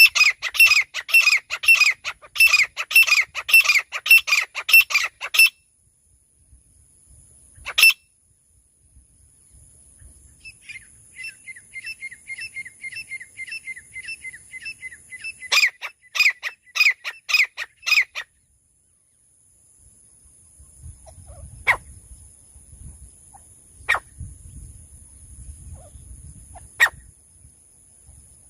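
Francolin (teetar) calling: a loud, rapid series of repeated calls for about five seconds, a single call a little later, then a faster run of quieter chirps and another loud burst of calls. In the last third the calls stop and there is only a faint low rumble with a few sharp clicks.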